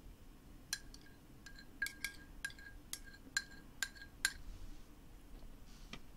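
A metal spoon clinking repeatedly against a ceramic bowl as sauce is scraped out of it: about ten light clinks, each with a brief ring, stopping about two-thirds of the way through.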